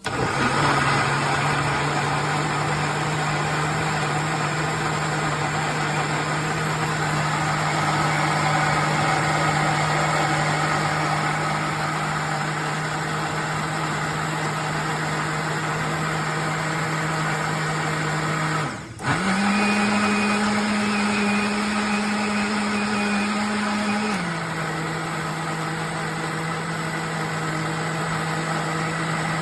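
A Tefal Blendforce II jug blender's motor switches on and runs at a steady hum. Near the end it cuts out for a moment and comes back at a higher speed for about five seconds, then drops back to the lower speed.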